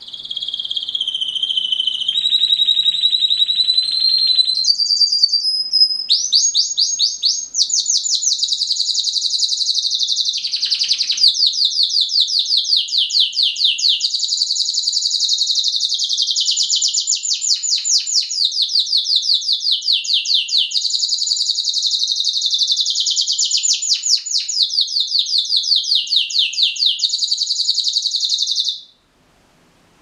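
Red-factor canary singing one long song: a few held whistled notes and glides at first, then rapid rolling trills that run on until the song stops abruptly near the end.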